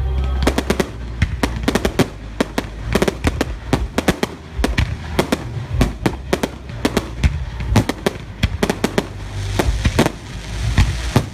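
Fireworks going off in a rapid, irregular string of sharp bangs and crackling pops, several a second, over a low rumble.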